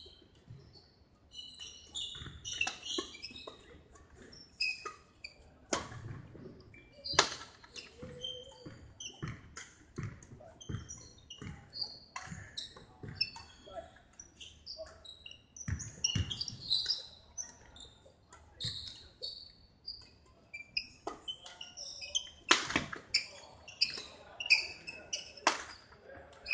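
Badminton rally on a wooden court: sharp racket strikes on the shuttlecock, with short high-pitched squeaks of shoes on the floor throughout.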